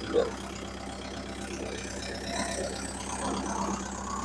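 Kubota MU4501 tractor's four-cylinder diesel engine running steadily at idle while stationary, with one brief louder sound just after the start.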